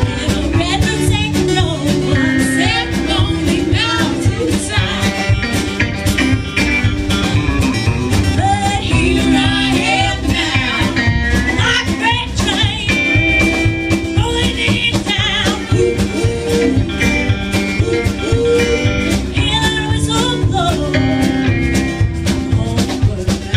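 Live band playing a song: a woman singing lead over strummed acoustic guitar, upright bass, electric guitar and drums, with a steady beat.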